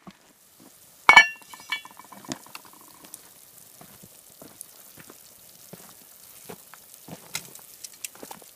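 A heavy cast-iron cauldron lid clanks once, about a second in, ringing briefly as it comes off the pot. Then the water inside, with corn cobs in it, boils at a rolling boil with a steady bubbling hiss and scattered small pops.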